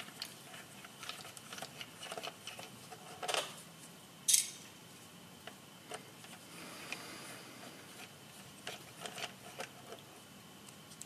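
Small screwdriver working screws at the rear of an SCX24 scale RC crawler: faint, scattered small clicks and scrapes, with one sharper click about four seconds in.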